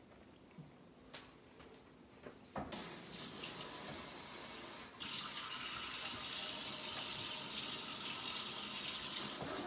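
A tap turned on about two and a half seconds in, water running steadily with a short break about five seconds in; a few faint clicks before it.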